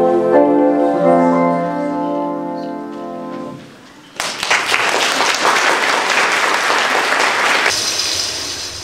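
School choir holding a final chord that ends about three and a half seconds in. After a short pause the audience breaks into applause, which thins out near the end.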